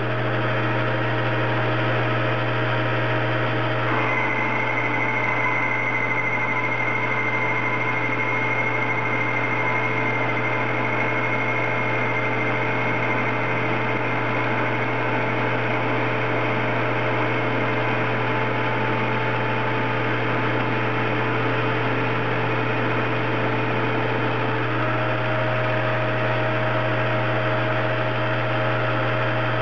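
Metal lathe running at about 800 RPM with a steady low hum while its turning tool, on power feed, takes a roughing cut along a 416 stainless steel bar. A high steady whine comes in about four seconds in.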